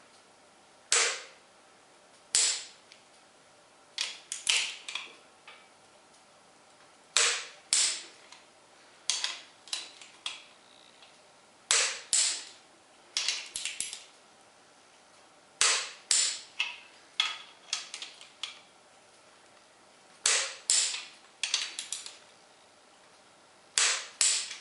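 Sharp metallic clicks with a short ring after each, in repeating groups about every four seconds: one or two loud clicks followed by a quick cluster of quieter ones.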